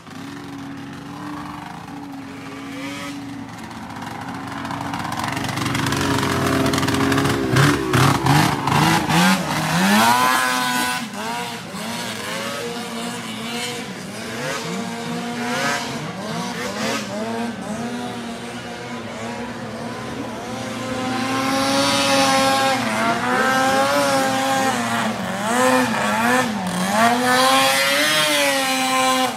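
Snowmobile engine revving hard as the sled launches and skims across a pond, its pitch climbing sharply and then rising and falling as the throttle is worked.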